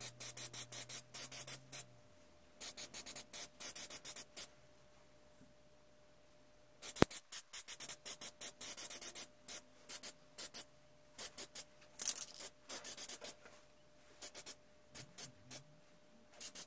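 Aerosol spray-paint can hissing in short, rapid bursts, about five a second, in runs of one to two seconds with pauses between, as the paint goes on in light passes. One sharp click about seven seconds in.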